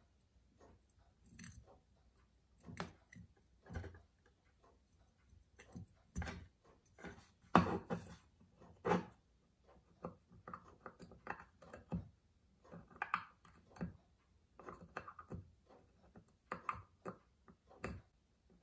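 Small, irregular metallic clicks and taps of a fine steel tool working at the hinge knuckles of a pocket-watch case, with two sharper clicks near the middle.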